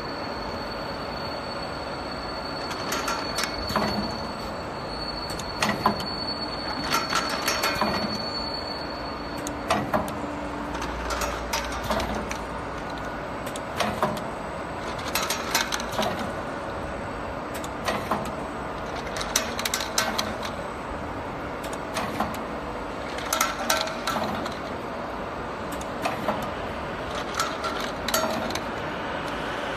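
Automatic paper-tube inside curling machine running, a steady mechanical hum with clusters of clacking and clicking every two to three seconds as it cycles through the tubes. A thin high whine stops about a third of the way through.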